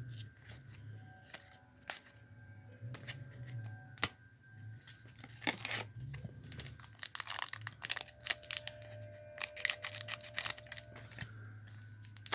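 Foil trading card pack wrappers tearing and crinkling as packs are opened, with scattered clicks of card handling. The rustling thickens about halfway through, over faint background music.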